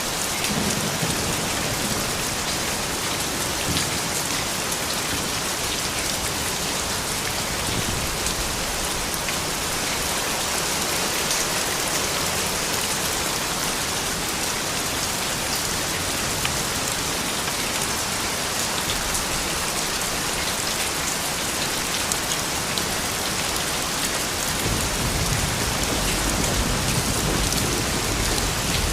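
Steady soft rain falling, an even hiss of drops, with a low rumble of thunder coming in near the end.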